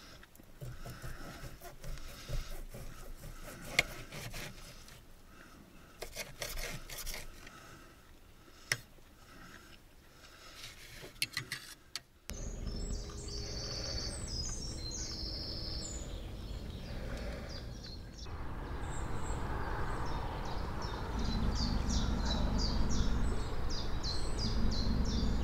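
Knife and fork cutting steak on a plate, with scattered sharp clinks and scrapes. About halfway through, birds chirp repeatedly in quick runs over a steady low background noise.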